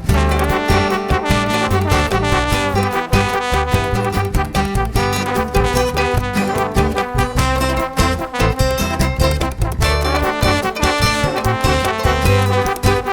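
Upbeat swing-style background music with brass horns over a steady beat.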